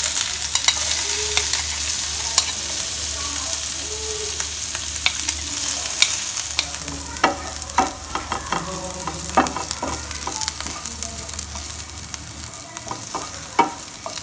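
Sliced onions and cumin seeds sizzling in hot oil in a nonstick pan, stirred with a wooden spatula, with scattered pops and scraping taps of the spatula on the pan. The sizzle softens gradually, and the taps come more often in the second half.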